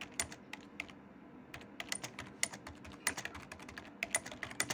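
Typing on a computer keyboard: irregular runs of sharp key clicks, several a second, with short pauses between runs.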